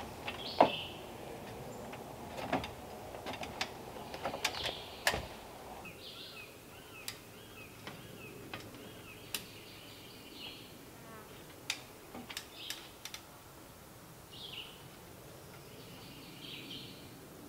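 Scattered sharp wooden knocks and taps as log rafters and a ladder are handled, the loudest about half a second in, with birds chirping in the trees. After about six seconds the knocks thin out to a few taps and the birdsong carries on.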